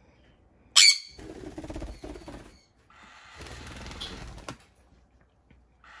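A pet parrot gives one short, loud, shrill screech about a second in. It is followed by two stretches of rustling and handling noise as cloth is worked in the hands.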